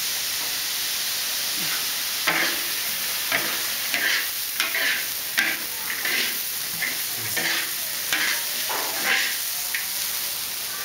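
Stir-frying in a large wok: a steady sizzle of frying food, with a spatula scraping through it in short strokes about once a second, starting about two seconds in.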